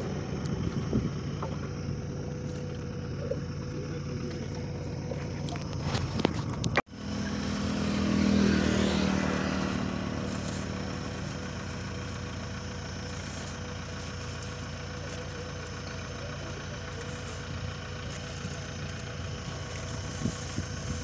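Road traffic running steadily, with a sudden brief break about a third of the way in. Just after the break, a passing vehicle swells and then fades away.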